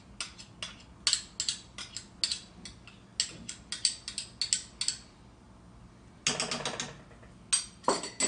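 Metal spoons clicking and scraping against metal as crushed garlic is worked off a measuring spoon into a pot of brine: a run of sharp clicks, about four a second, then a short pause and a quicker flurry of clicks near the end.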